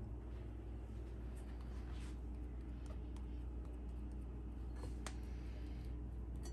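Faint soft rubbing and a few light taps of hands rolling ghee-greased milk-powder dough into small balls, over a steady low hum.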